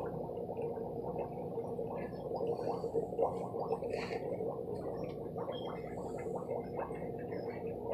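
Steady gurgling and bubbling of water.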